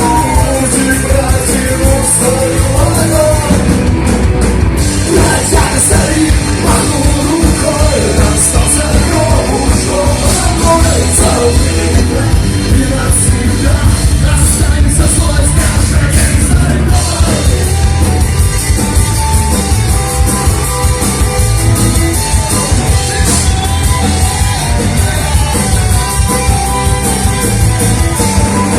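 Rock song played by a band, with singing over the loud, even music.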